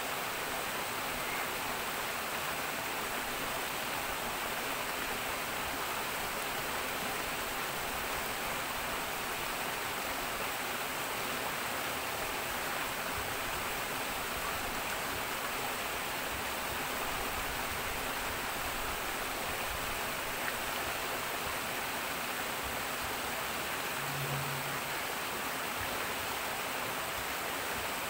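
Water rushing and churning steadily into a pool, a constant even splashing rush.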